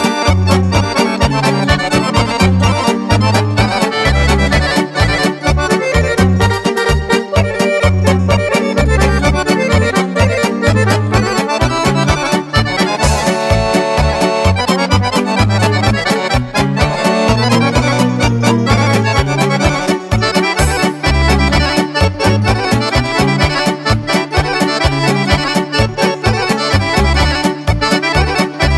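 Chromatic button accordion playing a Serbian kolo dance tune, with a bass line and a steady beat underneath.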